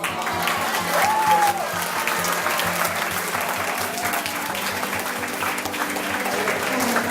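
Audience applause that starts suddenly and carries on steadily, over background music.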